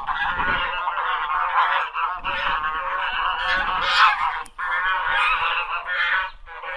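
A flock of waterfowl calling together in a dense, continuous chorus of many overlapping calls.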